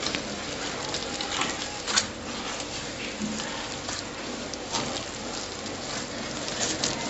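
A hand rubbing and mixing crumbly sablé dough of flour, butter and sugar in a bowl: a gritty, crackling rustle broken by irregular short scrapes and clicks against the bowl.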